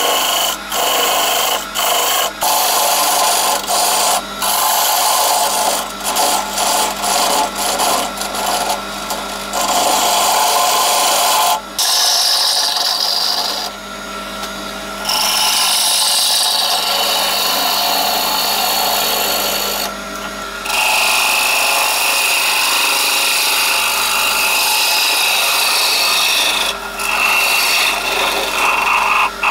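Wood lathe spinning a pine blank while a turning tool cuts into it: a loud, hissing, scraping cut that stops and starts many times as the tool is lifted and presented again. A steady low hum runs underneath.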